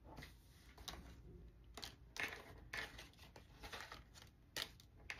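Faint rustling and soft flicks of playing-card-sized reading cards being handled and looked through, a few scattered short clicks.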